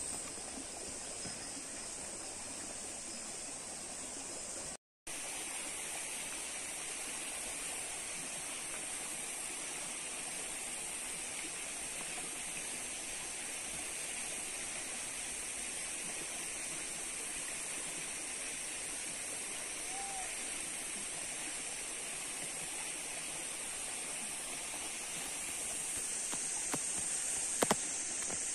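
Steady outdoor ambience: an even hiss with a constant high drone, cut off for a moment about five seconds in. A single sharp click comes near the end.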